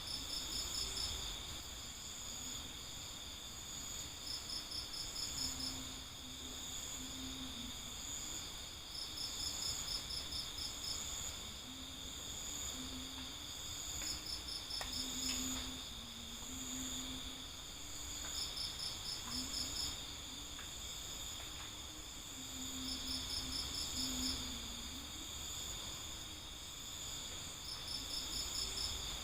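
Crickets chirping: a steady high-pitched trill, overlaid by a second cricket's rapid pulsed chirps lasting about a second each and repeating every four to five seconds.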